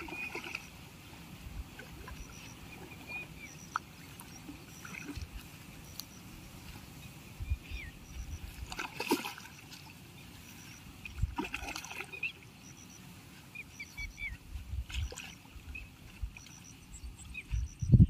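Hooked fish thrashing at the water's surface close to the bank while being played on a rod, with two louder splashes about halfway through.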